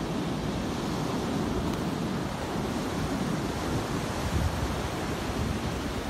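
Wind buffeting the microphone in a steady low rumble, mixed with the continuous wash of surf.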